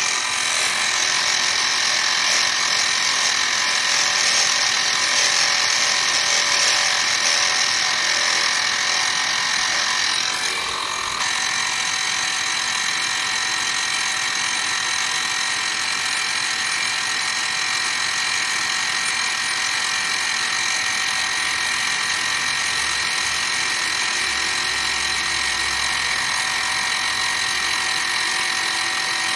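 Milling machine spindle running with an end mill cutting flats into resin pen blanks: a steady high-pitched whine over the noise of the cut. The sound drops slightly and changes about eleven seconds in, as the work moves to another blank.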